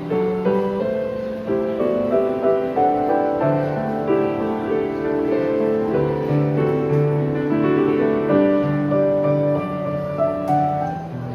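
Solo piano playing a slow, flowing graduation-song arrangement: held chords with a bass line moving underneath and a melody on top.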